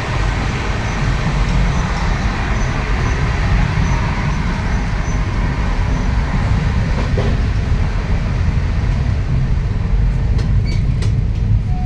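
Steady low rumble of a moving Indian Railways passenger train, heard from inside a first AC coach, with a few light clicks near the end.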